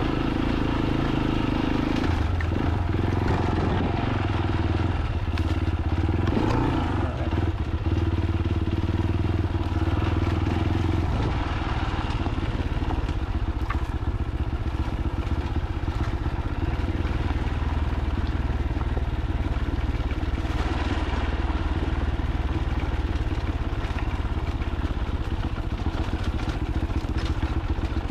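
Fantic Caballero 500's single-cylinder four-stroke engine running as the motorcycle rides along, its engine note shifting about 2 seconds in and again about 11 seconds in.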